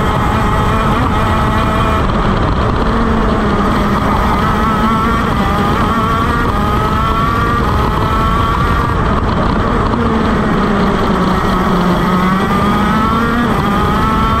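KZ shifter kart's 125cc two-stroke engine at racing speed on board. The revs climb from about four seconds in, drop off around the ninth to twelfth second for a corner, then climb again near the end.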